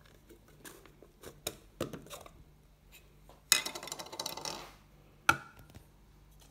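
Clicks and light knocks of a coffee grinder's catch cup being handled, then about a second of rattling as ground coffee is tipped into a glass jar, and a single sharp knock of the cup or jar near the end.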